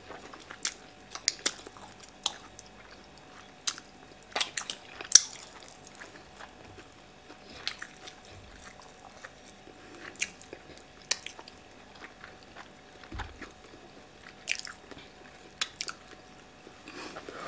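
Close-miked eating sounds: irregular wet mouth clicks and smacks from chewing grilled mackerel and fufu, the loudest about five seconds in.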